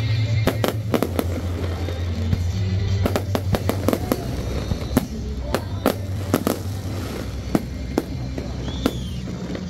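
Aerial fireworks shells bursting in irregular succession, about two sharp bangs a second with crackle between, over a steady low hum.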